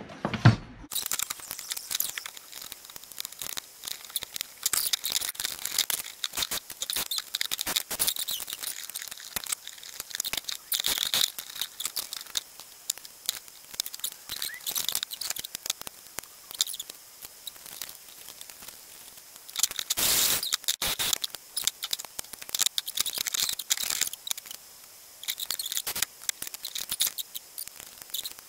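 Fast-forwarded workbench sounds of an electric fan heater being taken apart: a dense stream of quick clicks, rattles and scrapes of plastic housing, screws, metal parts and a screwdriver, squeaky and high-pitched. There is a longer, louder rustling patch about twenty seconds in.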